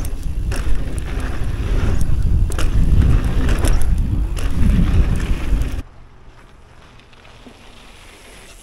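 Wind buffeting an action camera's microphone while a mountain bike rolls down a trail, a loud rumble broken by sharp knocks and rattles. It cuts off abruptly about six seconds in, leaving only a faint hiss.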